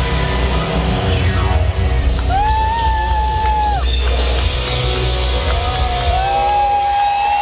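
A live rock band playing in a stadium, with long high held notes that bend up into pitch over a heavy low end, and fans yelling. The low end fades away near the end as the song winds down.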